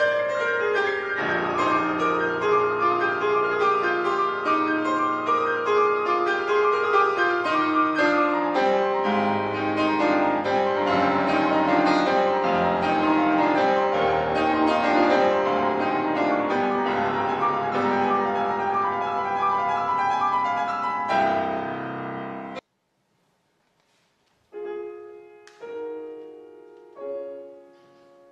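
Concert grand piano played solo: a fast, dense passage that ends on a chord about 21 seconds in and is cut off abruptly into silence. About two seconds later a new piece begins with separate notes and chords that ring and fade.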